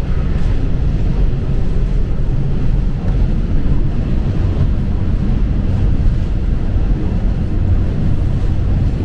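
Inside a JR Shikoku KiHa 54 diesel railcar under way: a steady low rumble of the diesel engine and the wheels on the rails.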